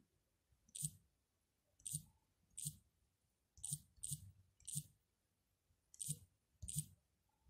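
Key-press clicks from typing a password on a tablet's touchscreen keyboard: eight short clicks, irregularly spaced about a second apart.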